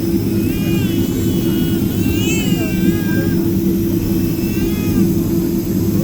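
Steady drone of an airliner's jet engines heard from inside the passenger cabin after landing, with faint voices in the background.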